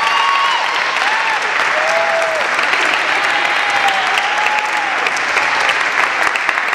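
Audience applauding steadily in a gymnasium, with a few short high calls or whoops over the clapping.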